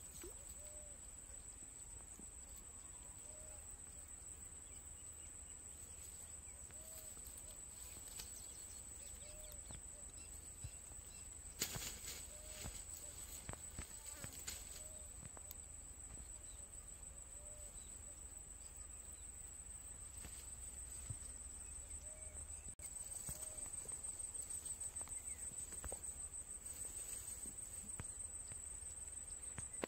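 Insects trilling steadily at a high, even pitch, the trill turning faintly pulsing in the second half. A few short clicks and rustles come around twelve seconds in.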